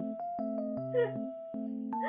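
Background music: a light electric-piano melody over soft, even beats, with a brief wavering vocal sound about halfway through.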